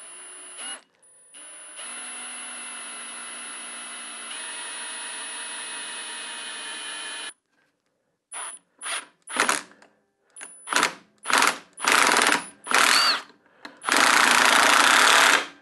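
Cordless drill boring a hole into a wooden block. It runs steadily for about six seconds, then comes a string of short trigger bursts, and near the end one longer, loud run.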